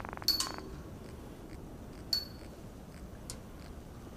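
A small croaker fish croaking in the hand: a short, evenly pulsed buzzing grunt right at the start. Two sharp clicks follow, about two seconds apart.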